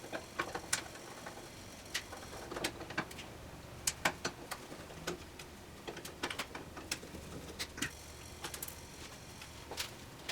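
Irregular metallic clicks and clinks of hand tools and loose metal parts being handled while a vintage Delta Unisaw table saw is taken apart, some spread out and some coming in quick clusters.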